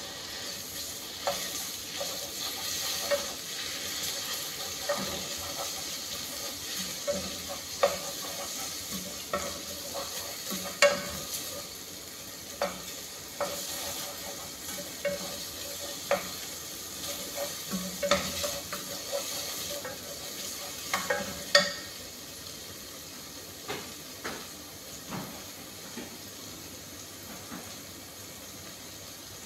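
A spoon stirring in a metal cooking pot, clinking and knocking irregularly against its sides with a short ring, over a steady sizzle of food frying in the pot. The knocks thin out after about 22 seconds.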